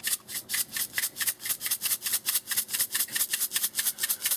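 Lemon pepper seasoning being shaken out of a shaker container, a fast, even rattle of grains, several shakes a second.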